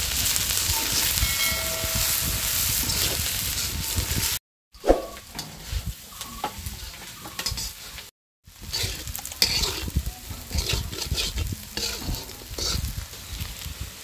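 Garlic cloves, green chillies and dried loitta fish sizzling in hot oil in a steel karahi, with a metal spatula scraping and clicking against the pan as the mix is stirred. The sizzle is densest for the first few seconds. After two short gaps the stirring scrapes stand out more.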